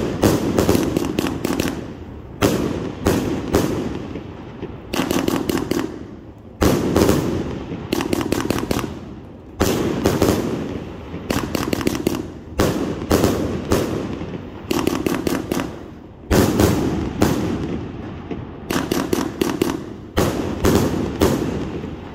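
A 100-shot firework cake firing in rapid volleys. Groups of sharp launch reports and bursts come every couple of seconds.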